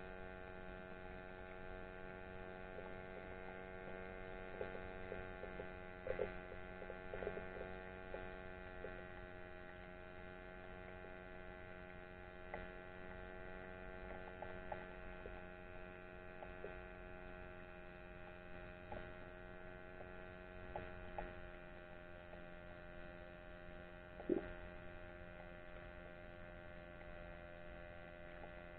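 Steady hum made of many evenly spaced tones, heard underwater, with scattered faint clicks and one sharper knock near the end.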